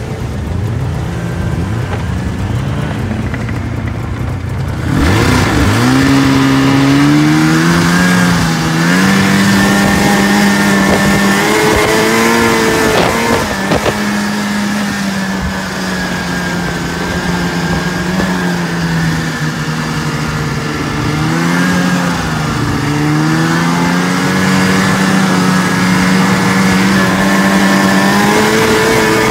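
Snowmobile engine running on the move. It is lower-pitched for the first few seconds, then throttles up sharply about five seconds in and runs at a fairly steady pitch, easing off and picking back up a few times, over the hiss of the ride.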